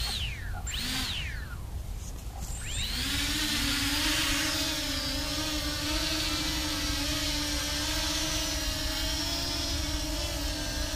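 A small home-built quadcopter's motors and propellers spin up about three seconds in as it lifts off, then run as a steady buzzing whine while it hovers low.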